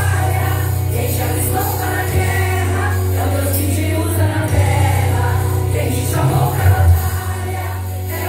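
Women's choir singing together over a steady low instrumental accompaniment.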